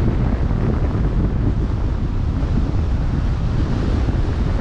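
Wind buffeting the microphone as a steady low rumble, over the wash of open-sea waves.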